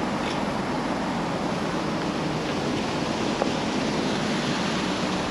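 Steady outdoor background noise, an even hiss-like rush with no clear rhythm, broken only by a faint tick about three and a half seconds in.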